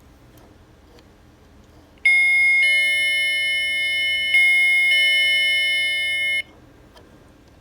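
Revex CS-500 wireless chime receiver playing its electronic chime: about four seconds of loud, steady electronic tones that change note three times, then cut off sharply. A few faint clicks come before and after it.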